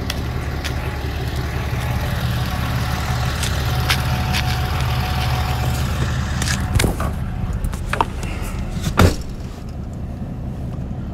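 A vehicle engine idling as a low steady hum, with knocks and clatter as a pickup truck's door is opened and climbed through, then the door shut with a loud thud about nine seconds in. After the thud the hum is quieter and muffled, heard from inside the cab.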